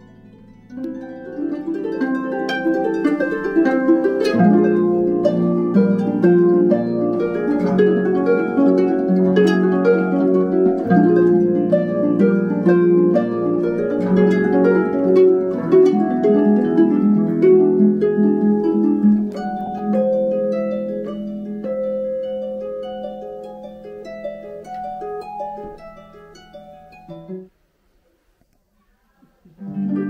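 Concert harp played solo: dense runs of plucked notes and chords ringing over a sustained low bass. The playing grows softer in the last third and dies away, leaving a moment of silence before harp playing starts again at the very end.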